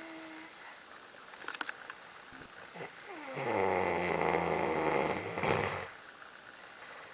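A person snoring: a whistling tone trails off right at the start, then one long snore of about three seconds begins a few seconds in, with a pitch that falls at its start. The snore is the loudest sound.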